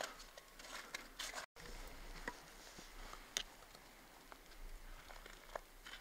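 Footsteps crunching on snow, soft and irregular, with scattered light ticks. The sound drops out completely for a moment about one and a half seconds in.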